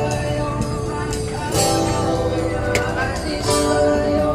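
Music with guitar and sustained melody notes that change pitch every second or so, with sharp ticks over it.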